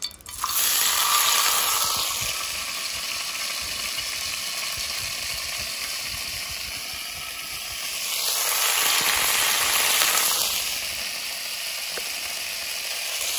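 Coconut butter hitting hot annatto oil in a frying pan and sizzling: the sizzle starts suddenly about half a second in, then carries on steadily, swelling twice.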